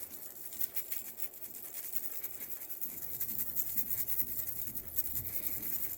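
Jewelry shaken in a hand: a continuous rattle of many small jingling clicks, used as a foley stand-in for shaking clothes hangers.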